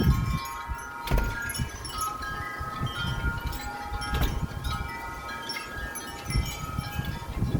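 Wind chimes struck over and over by strong gusty wind, many metal tones ringing and overlapping, with wind rumbling on the microphone underneath.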